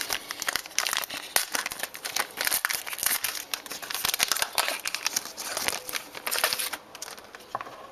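Wrapper of a football trading-card pack being torn open and crinkled by hand, a dense irregular crackling that dies down about seven seconds in.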